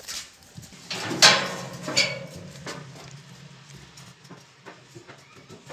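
Metal banging and rattling as a big ram is shut into a metal livestock weighing pen: a loud bang about a second in, a ringing clang a second later, then scattered lighter knocks of hooves and metal.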